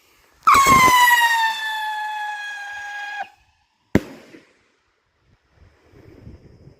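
Sinister salute rocket in flight, its howling tail giving a loud whistle that slides slowly down in pitch for nearly three seconds and cuts off suddenly. About a second later the salute bursts with a single sharp bang.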